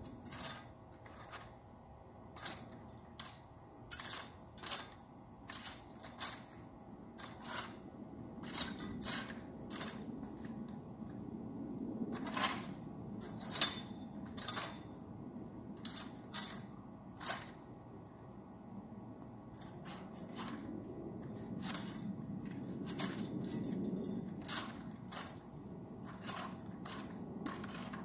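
Pruning saw cutting small twigs and branches in a tree: irregular sharp snaps and clicks over a softer rasping.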